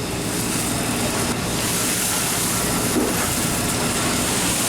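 Steady noisy rumble with faint voices in the background.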